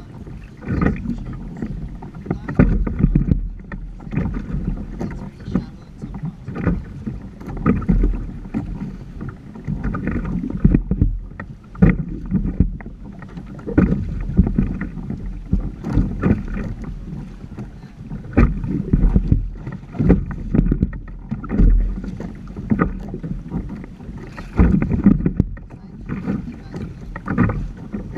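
Water slapping and splashing against the hull of a Hobie Tandem Island sailing trimaran under way, in irregular splashes about once a second, over a low wind rumble on the microphone.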